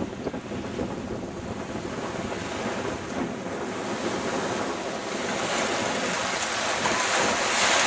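Small surf waves washing up on a sandy beach, with wind buffeting the microphone. The wash grows louder from about five seconds in.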